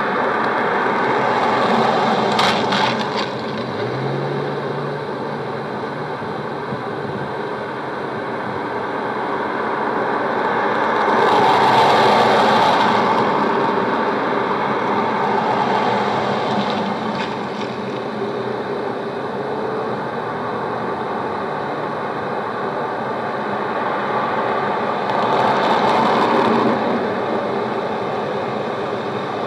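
Street traffic, a steady wash of road noise with two cars passing, swelling for a couple of seconds each, about halfway through and near the end. It is heard through several generations of tape re-recording.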